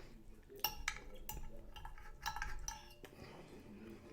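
Metal cutlery clinking and scraping against a plate, a string of sharp clinks with a short ring to each.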